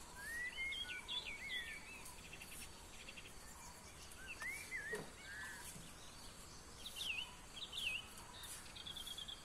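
Outdoor birdsong: a bird whistles several swooping phrases, rising and falling, in three groups, with short rapid trills between them. A faint steady hum of insects lies underneath.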